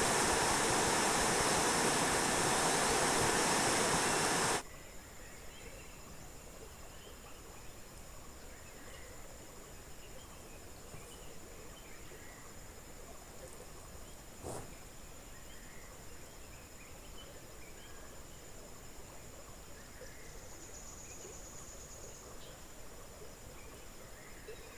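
Loud, steady rush of river water that cuts off abruptly about four and a half seconds in. After that comes quiet riverside ambience: a steady high-pitched buzz, scattered small chirps and a single knock about midway.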